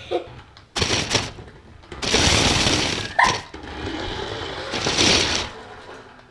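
Lego Technic remote-control car running, its small electric motor and plastic parts whirring and rattling in several bursts as it drives and stops.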